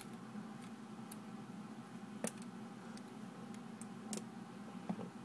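A few scattered clicks of hard plastic parts on a Transformers Bumblebee action figure as its joints and panels are moved and folded by hand, over a faint steady room hum.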